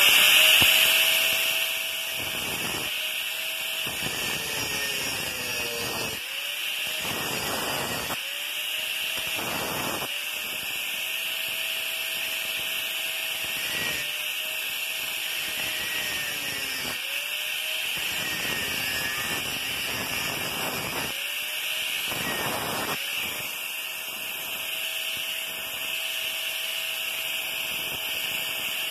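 Angle grinder with a cutoff disc cutting through a steel pipe: a steady high whine, with the motor's tone sagging and recovering every few seconds as the disc bites into the metal.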